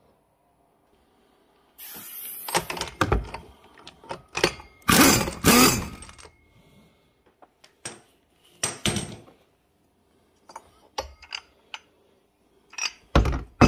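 Metal clinks and clanks of hand tools and loose parts being handled at a quad's CVT variator, in irregular runs starting about two seconds in, loudest around the middle.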